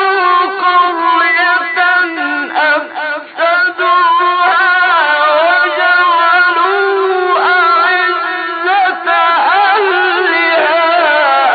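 A man chanting the Quran in melodic tajweed style: one voice holding long, ornamented notes that glide up and down, with a few short breaks for breath.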